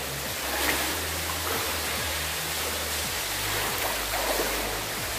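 Steady rushing hiss of water running and seeping through a flooded railroad tunnel, echoing off the stone walls, with a low hum underneath.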